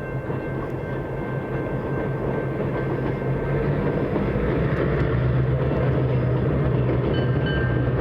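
EMD FP9 diesel locomotive running as the train approaches, a steady low engine drone that grows louder.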